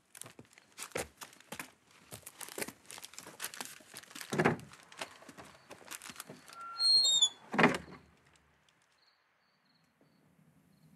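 Paper crinkling and rustling with light knocks, and a thump about halfway through. Then a wooden door's hinge squeaks and the door shuts with a louder thud.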